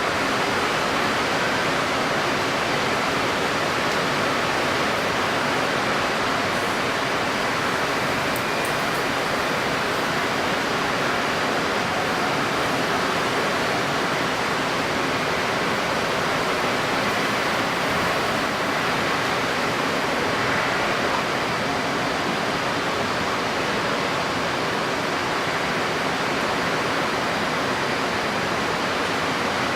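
Steady rushing of strong wind and wind-stirred water, an even noise that never lets up.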